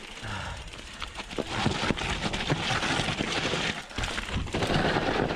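Bird Aeris 120 full-suspension mountain bike riding down a loose dirt trail: tyres crackling over the ground with many small knocks and rattles from the bike, getting louder about four and a half seconds in.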